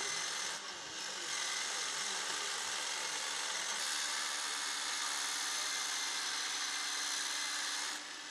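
Steady rasping hiss of tools being worked, with a faint low hum under it; it dips briefly about a second in and drops away shortly before the end.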